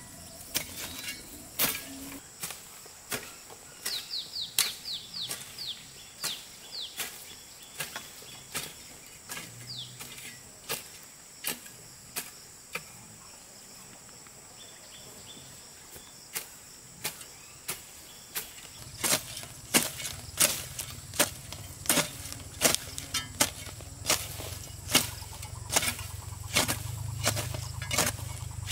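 Irregular sharp knocks of something being struck, at times several a second, over a steady high insect drone. A low hum joins about two-thirds of the way through, and the knocks come more often from then on.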